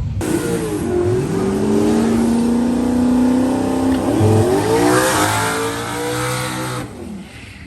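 Drag car's V8 engine revving up and holding high revs, dipping about four seconds in and rising again, then dropping off near the end.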